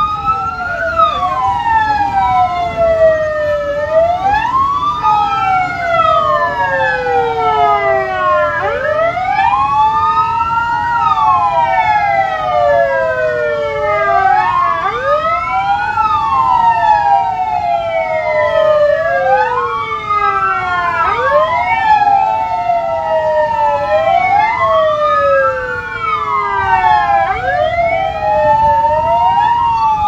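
Several ambulance sirens wailing at once, out of step with one another, each slowly rising and falling in pitch, over the low running of the vans' engines.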